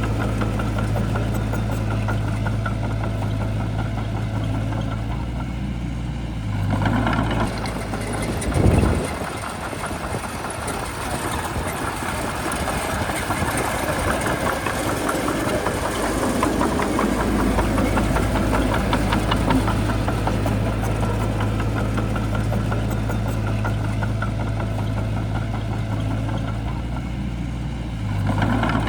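Shantui bulldozer's diesel engine running steadily, with a sharp knock about nine seconds in, a rougher, noisier stretch of working after it, then steady running again.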